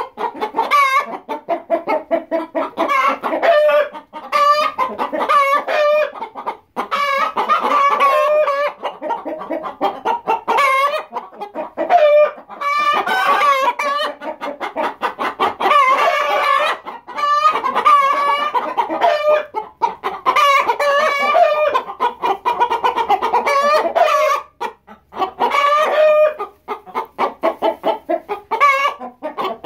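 A flock of hens clucking loudly in a dense chorus of short, repeated calls that overlap with hardly a pause, with a rooster crowing among them.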